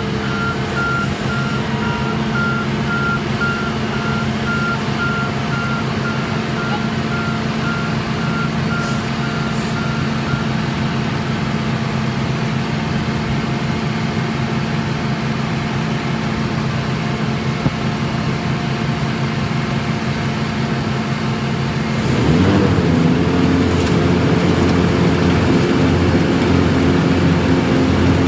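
Heavy diesel machinery of a cold-in-place asphalt recycling train and its Cat asphalt paver running steadily, with a vehicle backup alarm beeping at a steady pace until about ten seconds in. After about twenty seconds an engine's note rises and grows louder, then holds there.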